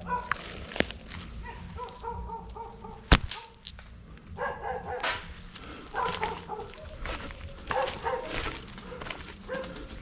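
A dog yelping and whining in short repeated calls, with one sharp crack about three seconds in.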